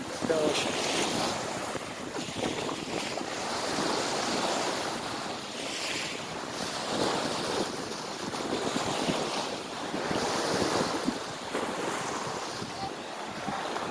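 Small waves breaking and washing over a pebble shore, swelling and easing every few seconds.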